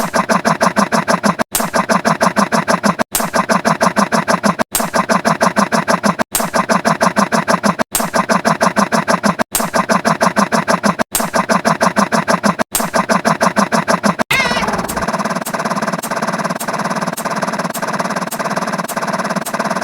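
Looped sound effect: a rapid pulsing buzz that repeats in cycles of about a second and a half, with a short break between cycles. About 14 seconds in it switches to a different repeating effect with a quick rising chirp and regular sharp ticks.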